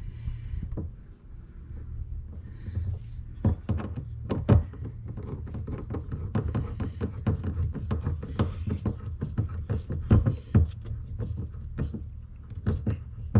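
Irregular clicks, taps and knocks of hands and fittings being worked in a tight spot, as a boat's fuel line is fitted into place, over a steady low rumble; a few louder knocks stand out about four seconds in and again about ten seconds in.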